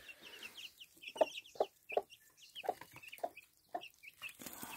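Mother hen clucking to her brood in short, low clucks, about six of them, roughly every half second from about a second in. Her young chicks peep over them in many short, high, falling notes.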